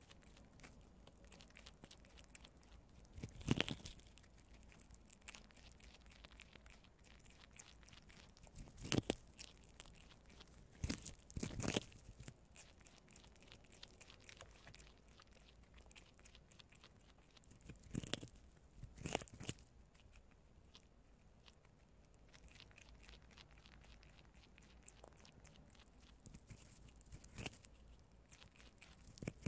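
Two prairie dogs gnawing kernels off a cob of white corn: a steady run of faint crunching clicks, broken by several louder crunches as kernels are bitten off.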